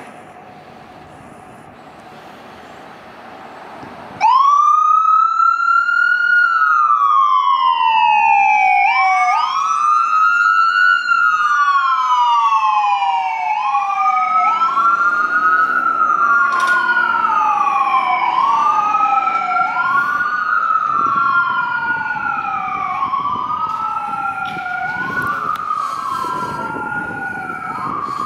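Ambulance's electronic siren switching on about four seconds in and wailing: each cycle rises quickly and falls away more slowly, repeating about every two seconds, with some sweeps overlapping. Faint street noise before it starts.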